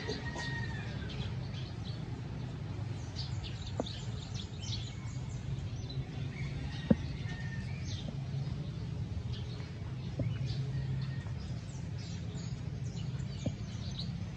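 Birds chirping, with many short high calls scattered throughout, over a steady low hum. A few sharp clicks break through, the loudest about seven seconds in.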